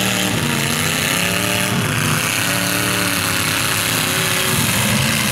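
Demolition derby cars' engines revving, several engine pitches rising and falling at once over a loud, steady din.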